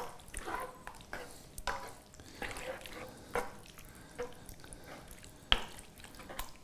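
Wooden spatula stirring a thick creamy sauce in a frying pan: soft wet scrapes and squelches with scattered light knocks of the spatula against the pan, the sharpest about five and a half seconds in.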